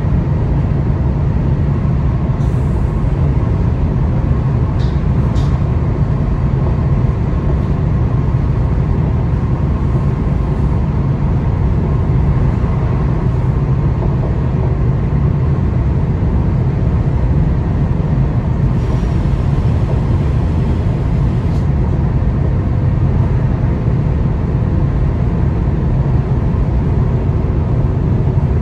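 ICNG intercity electric train running along the line: a steady low rumble that holds constant throughout.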